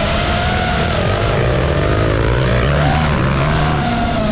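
FPV racing drone's motors and propellers whining, the pitch wavering up and down with the throttle, over the lower sound of dirt bike engines running at changing revs.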